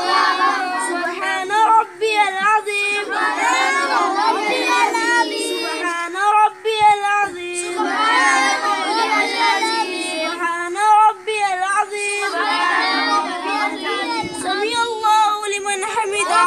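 A group of young boys reciting the words of the Muslim prayer (namaz) aloud together in a sing-song chant, several voices overlapping, during the bowing (ruku) part of the prayer.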